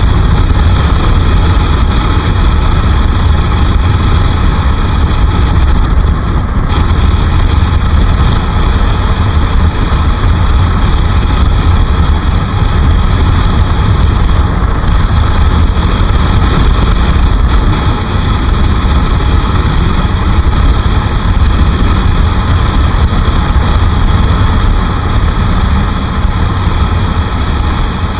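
Bajaj Pulsar RS 200's single-cylinder engine running steadily while the motorcycle is ridden, under a heavy low rumble.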